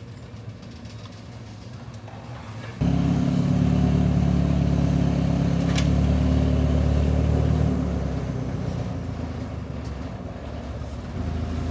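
Forklift engine running. It comes in suddenly loud about three seconds in, holds a steady note, then eases off from about eight seconds.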